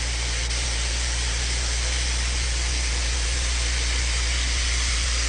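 Paint spray gun hissing steadily as it sprays epoxy primer, with a steady low hum underneath.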